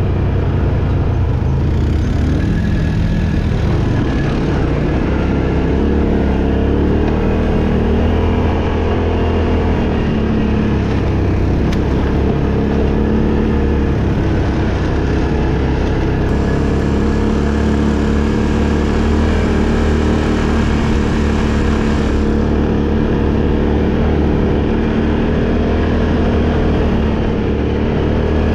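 Vehicle engine running continuously under way, its pitch drifting gently up and down.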